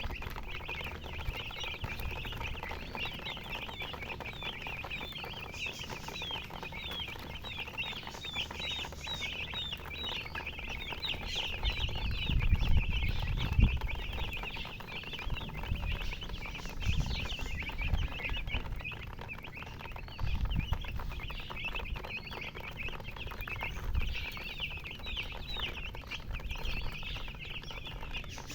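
A group of domestic chicks peeping continuously: many short, high-pitched cheeps overlapping. Dull low rumbles come and go underneath, loudest about halfway through.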